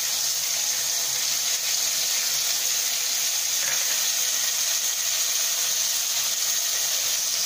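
Chopped tomato, onion paste and spices sizzling steadily in hot mustard oil in a kadai, the frying stage of a curry's masala base.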